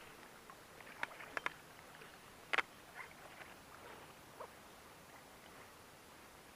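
A few scattered light clicks and knocks, two close together a little over a second in and the sharpest about two and a half seconds in, over a faint steady hiss.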